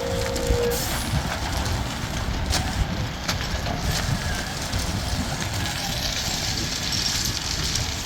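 Conveyor truck running as it shoots rock into a creek bed: a steady mechanical rumble with a few scattered sharp clicks. A steady whine cuts off within the first second.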